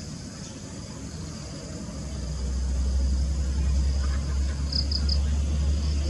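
Steady high-pitched chorus of crickets and other insects. A low rumble builds about two seconds in and becomes the loudest sound. Three short high chirps come in quick succession near the end.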